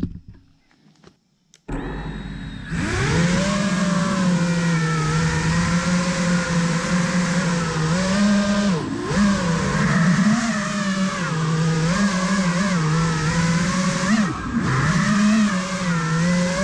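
FPV racing quadcopter's electric motors and propellers spinning up about two seconds in, then running as a steady whine whose pitch wavers with throttle, dipping briefly twice.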